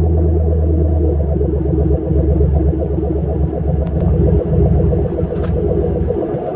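Ford F-150 pickup's engine running with a low rumble, its pitch shifting about two seconds in and again near the end.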